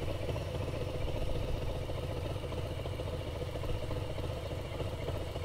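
Harley-Davidson Street Bob's V-twin engine running steadily and low, with no revving.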